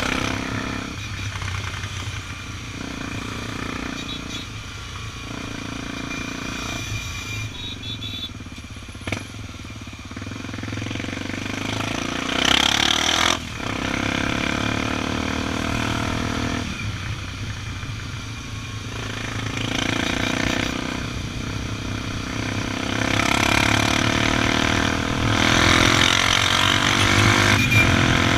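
Honda XR 250 Tornado's single-cylinder four-stroke engine running under way. Its pitch climbs and falls several times with throttle and gear changes, with a sharp drop about halfway through.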